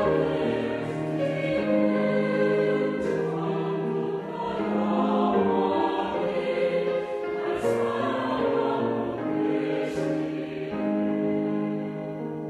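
Choir singing a Korean sacred choral anthem with piano accompaniment. The voices end their phrase near the end, leaving the piano playing on.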